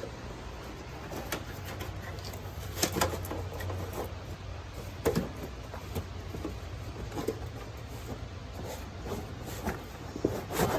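Scattered knocks, clunks and rustles of car carpet and interior pieces being handled and pushed into place, over a steady low hum. The two sharpest knocks come about three and five seconds in.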